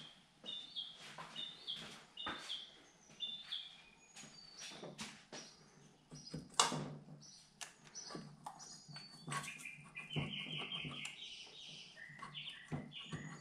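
Small birds chirping in short repeated calls, with a longer twittering run near the end, through an open garage door. Over them come scattered clicks and knocks of hands and metal parts on a motorcycle engine's cylinder head as it is worked loose. One sharp knock comes about six and a half seconds in.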